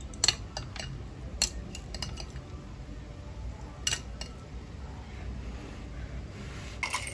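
Metal chopsticks clinking against a ceramic noodle bowl as noodles are picked up: a few separate sharp clinks, spread out, the loudest about a quarter second in and near four seconds.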